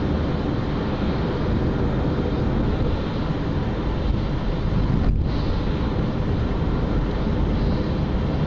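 Road noise of a moving car heard from inside the cabin: a steady low rumble from the tyres and engine with an even hiss over it.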